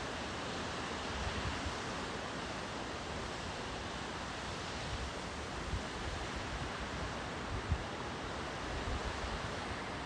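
Steady rushing of a rain-fed waterfall in full flow, with wind buffeting the microphone in a few brief low gusts.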